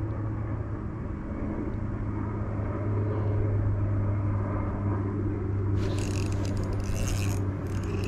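A steady low hum throughout; from about six seconds in, bursts of scratchy, clicking mechanical sound as an ultralight spinning reel is cranked to bring a small bluegill up through the ice hole.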